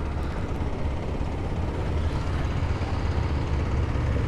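Motorcycle engines running with a steady low rumble.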